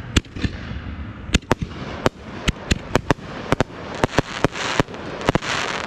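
Aerial fireworks launching and bursting: a rapid, irregular string of sharp bangs and pops, several a second, with a hissing crackle swelling near the end.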